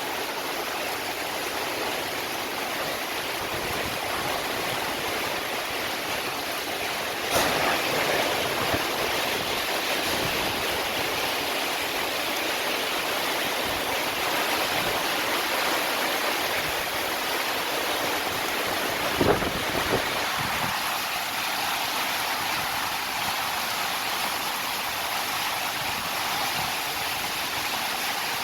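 Heavy rain pouring down in a steady hiss, with a sharp knock about seven seconds in and two more a little before twenty seconds.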